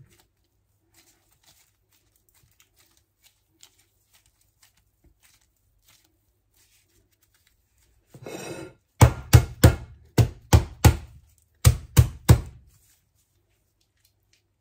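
Near silence, then a short rustle and a run of about nine loud thumps in under four seconds, six and then three, as the freshly stuffed sausage in its casing is knocked down to settle the meat and drive out air pockets.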